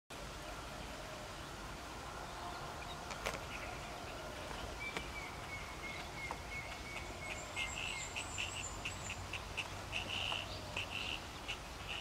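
Natural outdoor ambience with a steady background hiss and thin animal calls: a short trill about halfway, a higher, thinner trill soon after, then a run of short repeated chirps through the last third.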